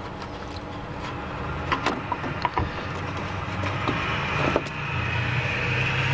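Needle-nose pliers clicking and scraping on a spring hose clamp as it is squeezed and slid back along a power steering return hose: a few sharp metal clicks, the strongest about four and a half seconds in. A steady low hum rises in the background in the last two seconds.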